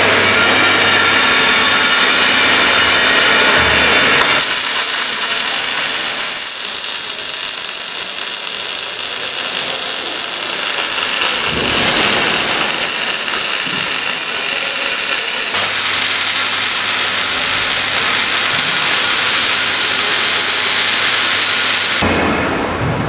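Robotic arc welding: the welding torch's arc hissing and crackling continuously as the robot lays a seam on the steel cross bearer, with spatter. A steady low hum runs under it at the start and again in the later part, and the sound shifts abruptly about four seconds in and near the end.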